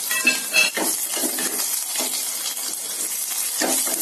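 Garlic cloves, curry leaves and mustard seeds sizzling and crackling in hot oil in a clay pot as a tempering, with a couple of sharp clinks about half a second in. A ladle scrapes through the pot near the end, stirring.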